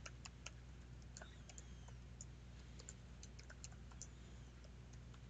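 Computer keyboard typing, faint: a quick, irregular run of key clicks over a steady low hum.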